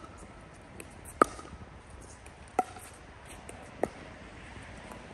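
Pickleball rally: paddles striking a hollow plastic pickleball, three sharp pops about 1.3 seconds apart, the first the loudest.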